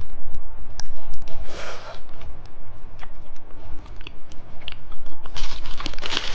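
Close-miked candy eating: scattered sticky mouth clicks and crackles of chewing, then a louder spell of packaging crinkling near the end.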